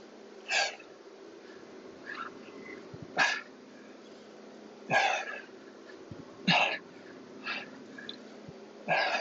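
A person's sharp, forceful exhales of effort during an exercise set, one every one and a half to two seconds, over a faint steady hum.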